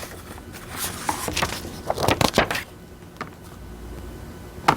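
Paper rustling as a picture-book page is handled and turned, with a sharp click near the end.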